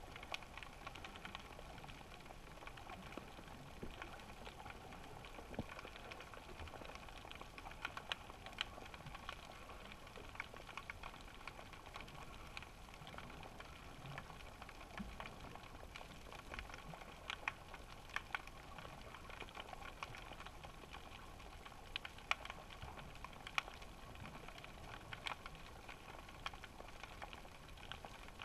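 Faint underwater ambience picked up through a GoPro's waterproof housing: a steady hiss with small, irregular clicks and crackles scattered throughout.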